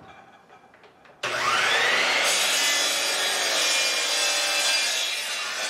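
A 12-inch miter saw starts about a second in, its motor spinning up with a rising whine, then runs steadily as the blade cuts through a wood pen blank.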